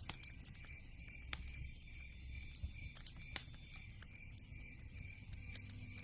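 Wood fire crackling in a fireplace: irregular sharp snaps and pops over a low steady rumble, with a louder pop about halfway through and another near the end.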